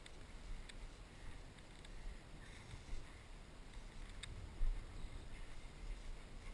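Wind rumbling on the microphone and footsteps swishing through knee-high pasture grass, with a few light clicks and a dull bump about four and a half seconds in.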